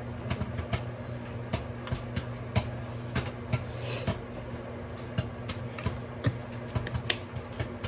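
Microwave oven running with a steady hum while popcorn kernels pop inside a paper bag, sharp irregular pops a few per second.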